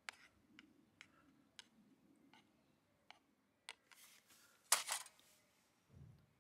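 A handful of light clicks and taps, then a louder short clatter of handling about five seconds in, and a soft dull thud near the end as a canvas pouch is set down on a wooden tree stump.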